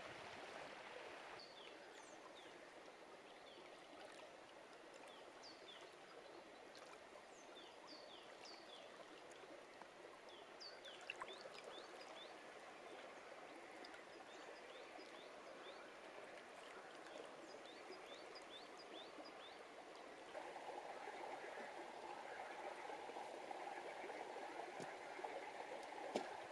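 Quiet, steady flowing of a shallow stream over stones, with birds chirping in short, sharp calls through most of the first two-thirds. About 20 s in, the water sound grows a little louder.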